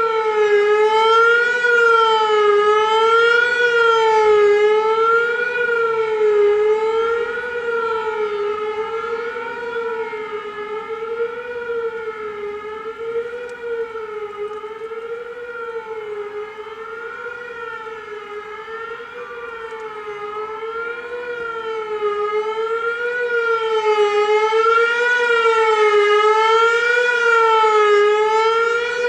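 Whelen WPS-3000 electronic outdoor warning siren sounding the Attack signal: a single wavering tone that rises and falls about once every second and a half. It fades through the middle and grows loud again near the end.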